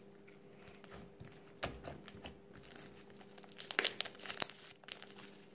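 Slime being squeezed and worked by hand, giving irregular crackling and popping clicks that are loudest about four seconds in.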